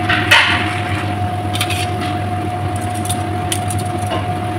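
Chicken simmering and bubbling in sauce in a frying pan over a steady low hum, with a short knock about a third of a second in and a few light clicks of metal tongs later.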